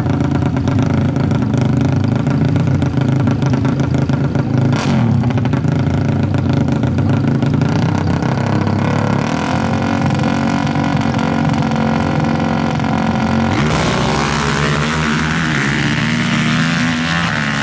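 Four-stroke 450 race ATV engines running and revving. About fourteen seconds in the sound changes abruptly, turning noisier and higher.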